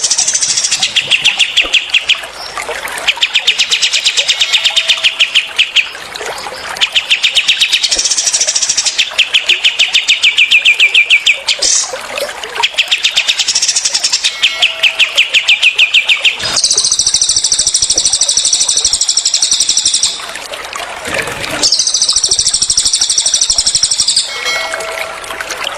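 Recorded songs of cililin and kapas tembak songbirds: a run of fast rattling trills, each about a second and a half long with short gaps between, then from about sixteen seconds in longer, higher buzzy trills of three to four seconds each.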